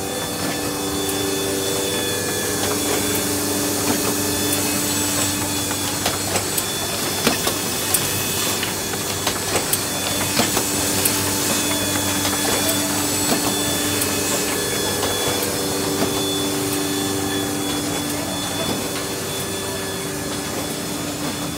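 Kolbus DA 240 hardcover case maker running: a steady machine hum with several held tones under a busy clatter of quick clicks and knocks from its moving parts. The knocks come thickest and sharpest a few seconds in, then the run settles back to a steadier rhythm.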